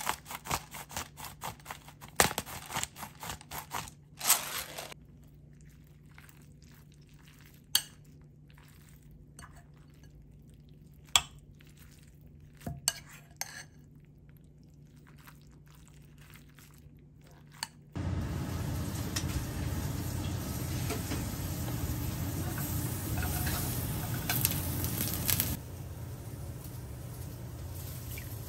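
Pepper grinder turned over a bowl of raw sliced beef, a quick run of rapid clicks for the first four seconds or so, then a metal spoon mixing the meat with scattered sharp clinks against the ceramic bowl. About 18 seconds in a steady rushing noise starts, dropping to a softer hiss about three seconds before the end.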